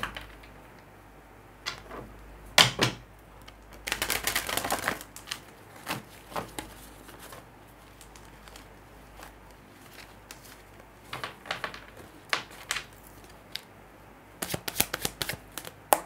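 Tarot cards being shuffled and handled, with a brief shuffle about four seconds in and scattered light clicks and taps of cards between.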